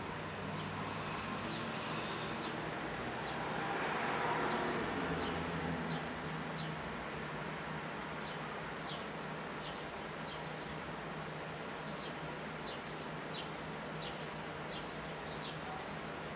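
Sparrows chirping in short, high, repeated notes over a steady outdoor background. About four seconds in, a broad whoosh of noise swells and fades.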